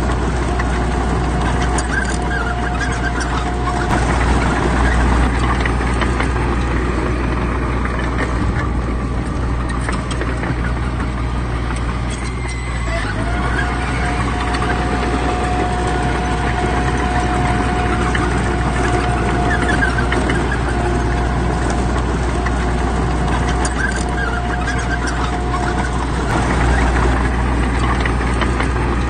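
Diesel engines of heavy earthmoving machinery running steadily, a low rumble with a thin steady whine over it for much of the time, easing briefly about twelve seconds in.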